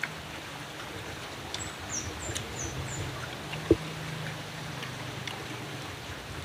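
Outdoor background with a steady low hum. About two seconds in, a small bird gives four quick, high, falling chirps. A little past halfway there is one short, sharp knock.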